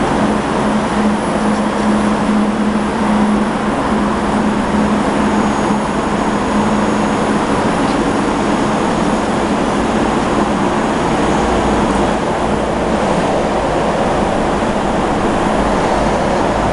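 Large CNC bed milling machine powered up and running: a steady mechanical hum over a dense noise, with a low tone that fades out about a third of the way through.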